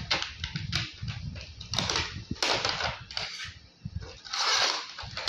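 Cardboard box and clear plastic packaging handled as a camera is unboxed: irregular rustling and crinkling with a few sharp clicks, a longer, louder crinkle near the end.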